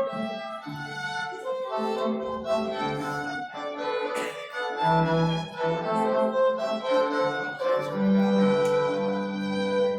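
A string quartet playing: a violin melody over held lower notes from the cello.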